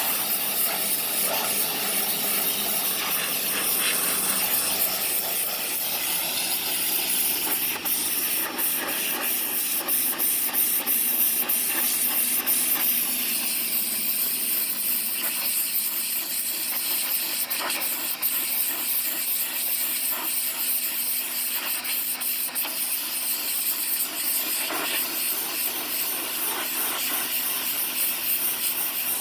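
Portland 1750 PSI electric pressure washer spraying a wooden fence: a steady hiss of the water jet over the running pump.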